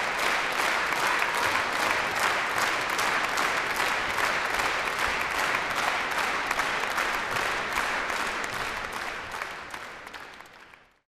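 Concert audience applauding steadily: a dense crackle of many hands clapping that fades out over the last couple of seconds.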